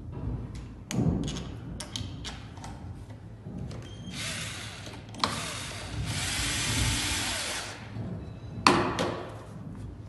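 Cordless drill-driver running in two bursts, a short one about four seconds in and a longer one of about two and a half seconds, driving screws into a smart door lock on a wooden panel. Sharp knocks and clicks of handling come around the first and last seconds, the loudest near the end.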